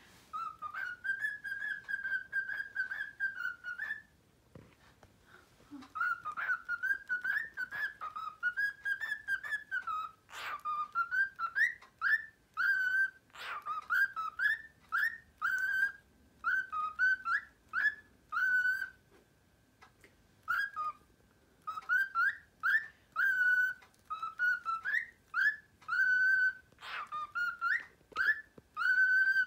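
Cockatiel whistling its song: a long run of short, chirpy whistled notes, many sliding upward, broken by short pauses about four seconds in and again around twenty seconds.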